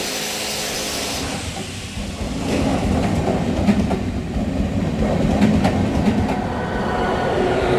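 Train running on rails: a low rumble that grows louder about two seconds in, with sharp clicks of the wheels over rail joints.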